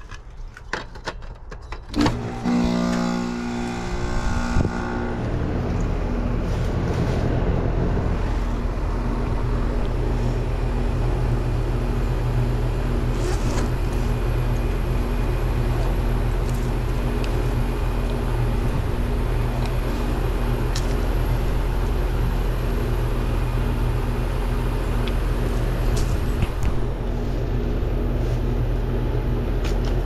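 Air-conditioner condenser starting up after its contactor pulls in: the compressor hum starts suddenly about two seconds in and the condenser fan comes up to speed over the next few seconds, then the unit runs steadily.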